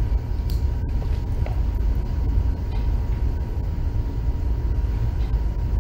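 Steady low rumble of background room noise with no speech, carrying a faint steady high tone and a few faint clicks.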